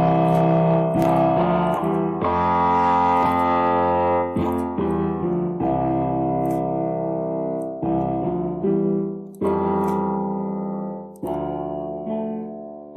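Electric piano playing a slow run of sustained chords, a new chord every second or two.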